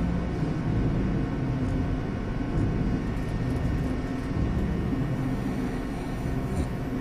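Elevator car travelling between floors: a steady low rumble.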